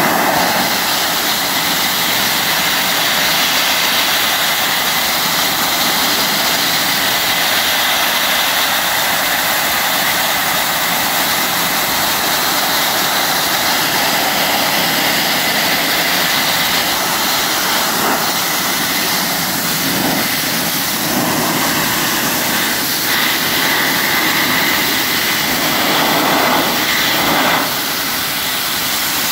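Wet abrasive blasting nozzle (Dustless Blasting) stripping rust from a steel beam: a loud, steady hiss of compressed air, water and grit striking the metal. It dips slightly near the end.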